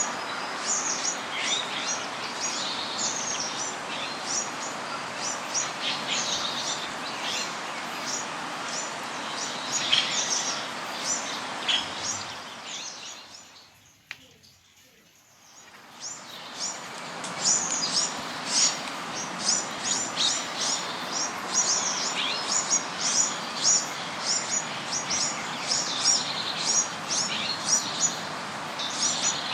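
Many small birds chirping at once in rapid, overlapping calls, with a steady noise underneath. The sound fades out almost completely about halfway through and comes back in a couple of seconds later.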